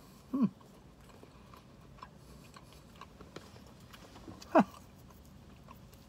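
A man's wordless thinking sounds: a short low hum about half a second in and a brief falling 'hmm' a little over four seconds in, with faint mouth clicks between them.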